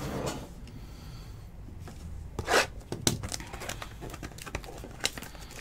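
Packaging crinkling and tearing as a Tier One baseball card box is opened by hand, with one loud rip about two and a half seconds in, a sharp click just after, then scattered rustles and clicks.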